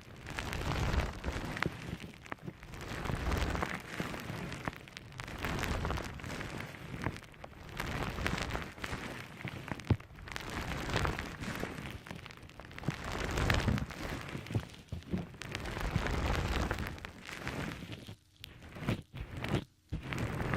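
A soft, squishy object squeezed and pressed right against the microphone in repeated slow squeezes, giving sticky, wet crackling with soft low thumps.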